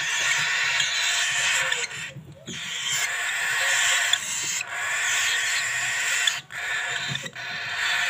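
Cockatiel chicks making rasping food-begging calls, a near-continuous hissing chatter from several birds, broken by a few brief pauses.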